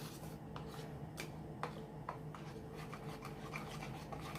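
A spoon stirring a thick honey and lemon paste, scraping and ticking irregularly against the container.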